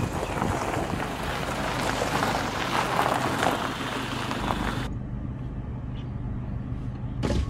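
Isuzu D-Max 1.9 turbodiesel pickup being driven: a steady low engine hum under a loud rushing noise that drops away about five seconds in, leaving the hum alone. A short knock near the end.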